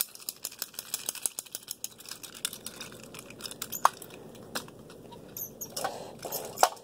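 Handling noise: a run of soft clicks and rustles, with a sharper click about four seconds in and another near the end.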